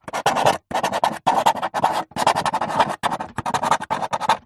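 Marker pen writing: rapid scratchy strokes in about six runs, separated by brief pauses.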